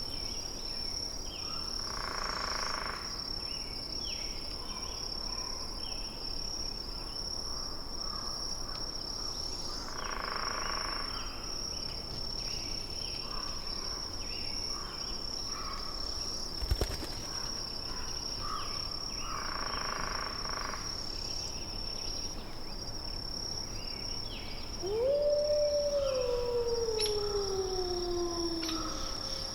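A steady high-pitched insect-like trill runs throughout, with a few soft calls in the background and a single click midway. Near the end a single long animal howl rises quickly, then slides slowly down for about four seconds; it is the loudest sound.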